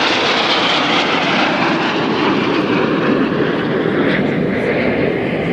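Steady, loud jet noise from four Red Arrows BAE Hawk T1 jets flying the mirror pass in close formation.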